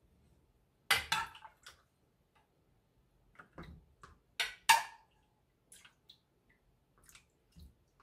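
A metal ladle scooping soy-braised eggs and their braising liquid from a pot into a plastic container: a run of short splashes and drips with light clinks, the loudest about a second in and again just before the middle.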